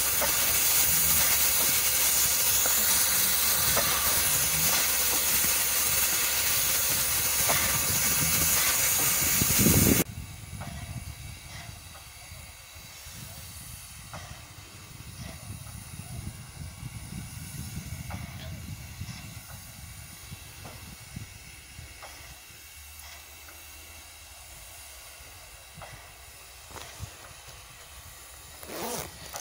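Loud steady hiss of steam venting from a standing steam locomotive. About ten seconds in it cuts off abruptly, leaving a much quieter low rumble with faint ticks and a short louder burst near the end.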